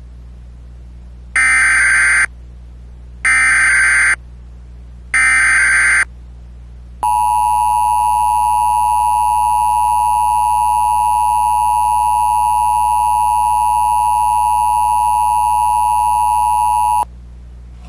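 Emergency Alert System tones on cable TV. Three short bursts of the digital header's data screech, each about a second long and about a second apart, are followed by the EAS two-tone attention signal, held steady for about ten seconds and then cut off suddenly.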